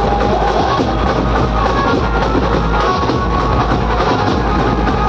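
Dhumal band music played loud through large loudspeaker stacks: steady heavy drums and deep bass under an amplified melody line.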